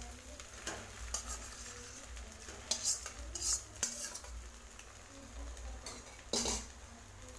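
Metal utensils clinking and scraping against a metal kadai as boiled noodles are added to fried egg masala, over a faint sizzle from the pan. A handful of sharp clinks, a cluster about three seconds in and another near the end.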